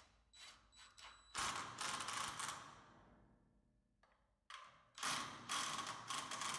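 Clicking and rattling of tools and parts being handled, in two bursts with a short quiet stretch between.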